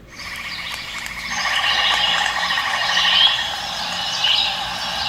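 Chorus of frogs croaking with insects chirping, a nature sound effect that cuts in suddenly and grows fuller about a second in.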